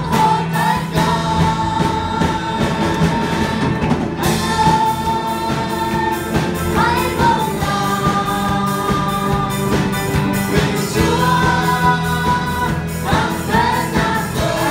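Live Vietnamese gospel worship song: singers with microphones over a band of keyboard, electric guitar and drum kit, with long held sung notes.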